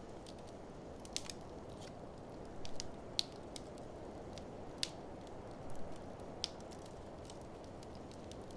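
Wood fire crackling in an open fireplace: irregular sharp pops and snaps, a few louder clusters among them, over a steady low rushing.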